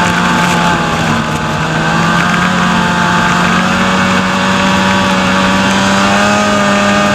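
Snowmobile engine running steadily under way, with a brief slight dip in pitch and level a second or two in before it settles at a steady speed.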